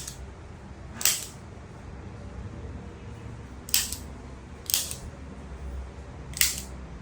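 Handheld spring-loaded chiropractic adjusting instrument (activator) firing four sharp clicks against the spine, set to a light force. The clicks come at uneven intervals, two of them about a second apart.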